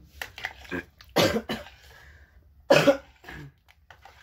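A woman coughs twice: once about a second in and again just under three seconds in.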